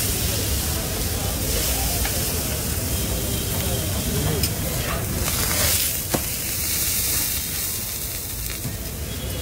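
Egg paratha, onions and chilli paste frying on a large oiled iron griddle: a steady sizzle that surges briefly about five seconds in. There is one sharp click about six seconds in.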